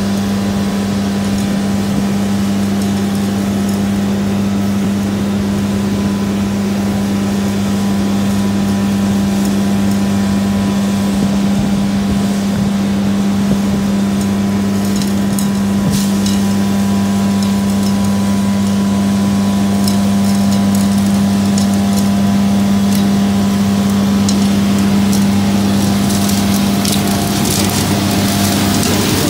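Vacuum truck running steadily with a strong, even low hum while it sucks out a grease trap, with scattered sharp clicks and rattles over the second half.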